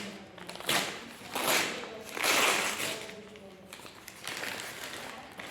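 Rustling and crinkling of a clothing parcel's packaging being handled and opened, in three bursts, the longest and loudest a little over two seconds in.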